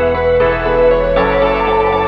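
Background music of sustained chords, which change about a second in.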